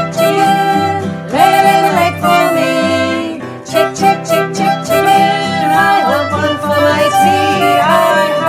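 A small band playing a bouncy tune: acoustic guitar with clarinet and fiddle, and women's voices singing along.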